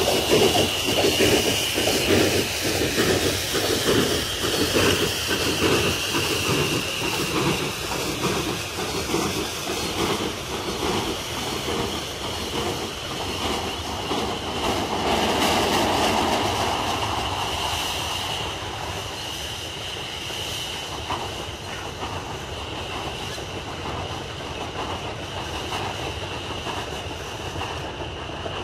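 Recorded steam-hauled goods train: a regular clatter of about two knocks a second, with a steady high-pitched wheel squeal, fading as the train draws away.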